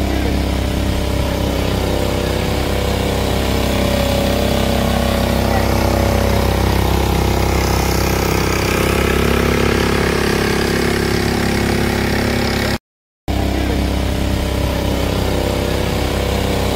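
Long-tail boat engine running steadily at low speed, with a brief break in the sound about thirteen seconds in.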